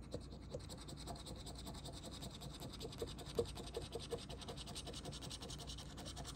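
Faint, steady scratching as the coating is rubbed off a scratch-off lottery ticket in rapid short strokes.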